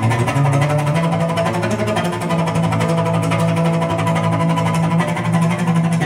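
Recorded cello music played through Teufel M200 loudspeakers driven by a Harman Kardon HK 970 amplifier, picked up in the room by the recorder's built-in microphones, with a strong steady bass line under fast string notes.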